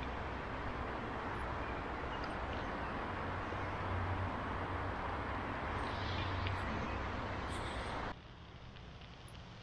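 Steady outdoor rushing noise with an uneven low rumble, which cuts off abruptly about eight seconds in.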